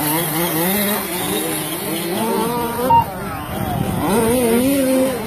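Several radio-controlled race trucks' motors whining as they rev up and down around the track, overlapping. A short sharp beep sounds about three seconds in.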